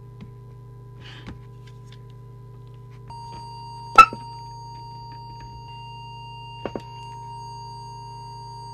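A steady test tone of about 1 kHz from an audio oscillator, used to set a CB radio's FM deviation, sounding over a low steady hum. About three seconds in the tone drops slightly in pitch and sounds richer. There is a sharp click about a second later and two quick small clicks near the end.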